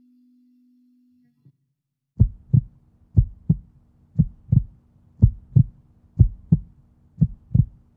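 Heartbeat-like sound effect in the logo's outro soundtrack: paired low thumps, about one pair a second, over a steady low hum, starting about two seconds in. Before them a sustained low tone fades out.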